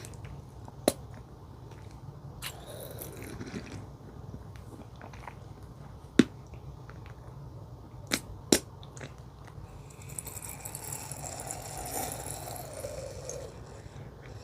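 Close-miked eating: four sharp pops as food is bitten, the last two close together, with two stretches of crackly chewing in between.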